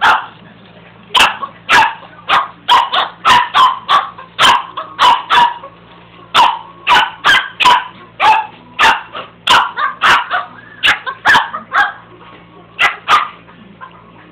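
Small dog barking over and over at a push carpet sweeper, quick runs of several barks with short pauses between them. The barking stops about a second before the end.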